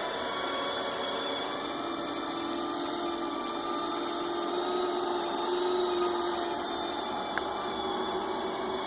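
Knockoff robot vacuum running: a steady motor whir with a strong hum whose pitch drifts slightly, and a few faint ticks near the end.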